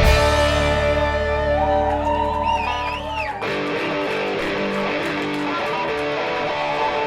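Live rock band playing an instrumental break led by electric guitar, with a wavering lead line. About three seconds in, the bass and drums drop out, leaving lighter guitar playing.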